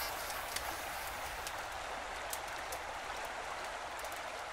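Faint, steady rush of a river with scattered small crackles and ticks over it, typical of the embers of a campfire burning down.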